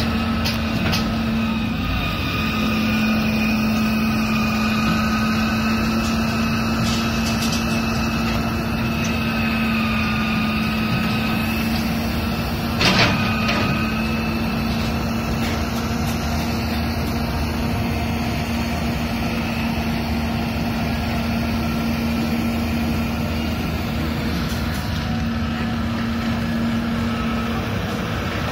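CAT 320C excavator's diesel engine running steadily under work load with a higher whine over it while it digs and swings. A single sharp clank rings out about halfway through.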